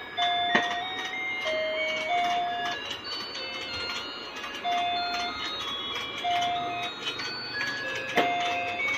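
Battery-powered musical fishing-game toy playing its electronic tune, a plain beeping melody of short held notes stepping up and down. A couple of sharp clicks sound, one about half a second in and one near the end.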